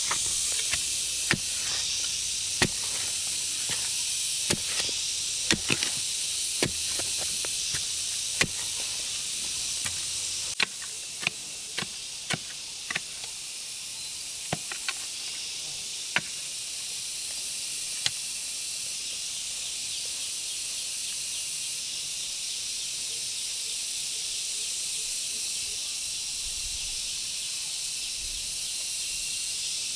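Sharp knocks at irregular intervals, a dozen or so over the first eighteen seconds, over a steady high-pitched hiss of insects that pulses in a fast rhythm later on.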